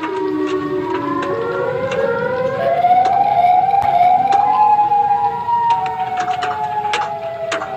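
Civil defense siren sounding several tones together that rise in pitch over the first few seconds, then hold and slowly sag, with sharp clicks scattered through.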